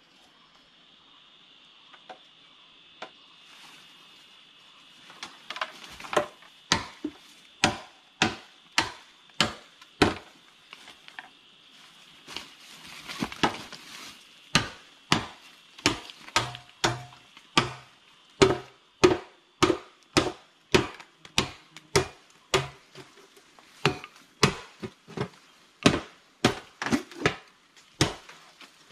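Machete chopping bamboo: a long run of sharp strikes, about one and a half a second, starting about five seconds in after a few lone knocks.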